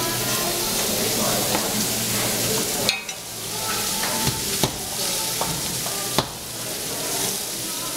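Food sizzling on a flat-top griddle, a steady hiss that dips briefly about three seconds in, with three sharp clicks of metal tongs against the griddle in the second half, the last the loudest.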